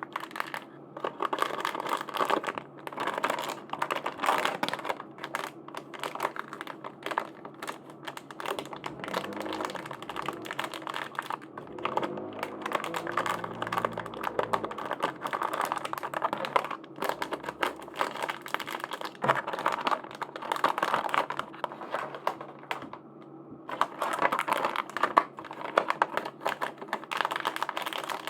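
Hands unpacking small merchandise: a dense, irregular run of small clicks and plastic crinkles, with a short lull about four-fifths of the way through.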